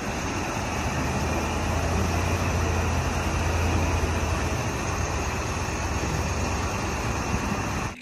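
Diesel engine of a Chelyabinets 50-tonne mobile crane truck running under load as it crawls up onto a low-loader trailer: a steady low rumble with a broad hiss over it. The low rumble eases a little past the middle.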